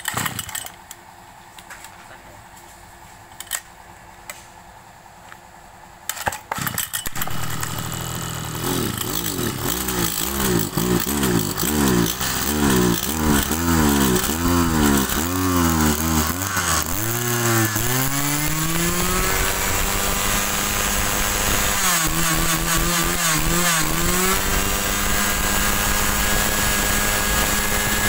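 Mitsubishi TL261 brush cutter's two-stroke engine pull-started about six seconds in. It runs unevenly at first, its pitch wavering up and down while the choke is worked to draw fuel through. It then rises and settles into a steady high-revving run.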